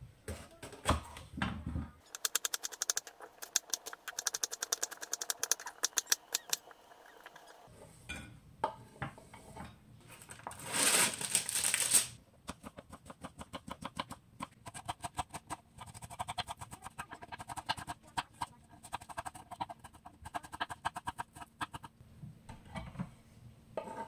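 Kitchen knife chopping vegetables on a wooden cutting board, first a green bell pepper and later onion, in fast runs of quick strokes. About halfway through, a loud crinkle as a plastic tray of cucumbers is handled.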